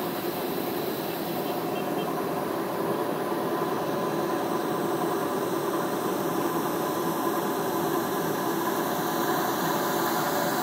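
Steady droning hum with a wash of noise and no distinct events, growing slightly louder about three seconds in.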